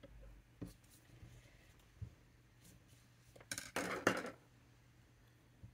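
Small objects knocked and clinking on a desktop: a few light knocks, then a louder clatter of clicks and rustling about three and a half seconds in.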